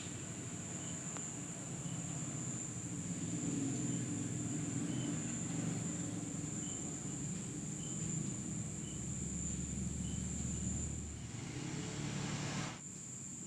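Insects chirring in the background: a steady high-pitched whine with faint short chirps every second or so, over a low rumble that cuts off abruptly near the end.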